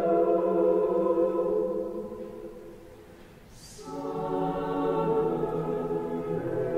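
Mixed chamber choir singing long held chords. The first chord fades almost away about halfway through, then a short hiss, and a new full chord comes in and is held.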